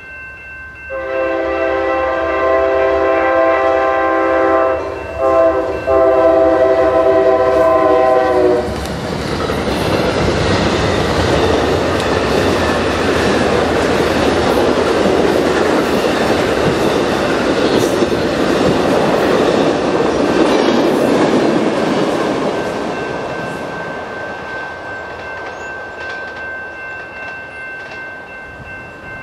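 Amtrak passenger locomotive sounding its multi-tone horn for a grade crossing, long blasts broken briefly about five seconds in, lasting about eight seconds. The train then rushes past, double-deck cars rumbling with wheels clacking over the rails, and fades away in the last several seconds, while a crossing-signal bell rings steadily underneath.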